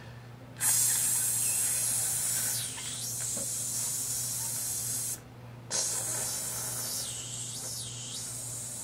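A man imitating an air leak with his mouth: a long hiss of about four and a half seconds, a short break, then a second hiss starting near the six-second mark, its pitch swelling and dipping as he shapes it.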